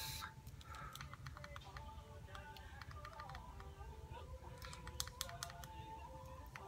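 Light clicks and taps of a vape box mod and its tank being handled, with a quick run of sharper clicks about five seconds in.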